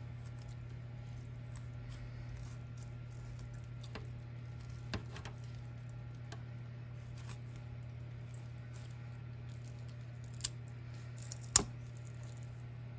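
Kitchen shears cutting along the backbone of a raw whole chicken: wet squishing of skin and flesh with scattered small clicks, and a few sharp snips as the blades close through bone, the loudest near the end. A steady low hum runs underneath.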